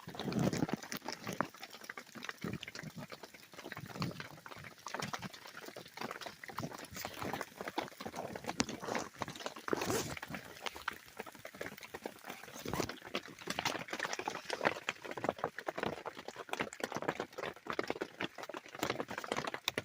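Dense, irregular ticking and crackling of ice in an ice storm, with a few louder cracks among the steady patter.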